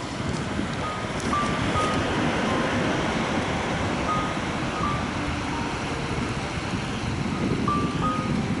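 Steady rushing noise of sea wind and surf. Over it runs a sparse tune of short, clear electronic notes at several different pitches.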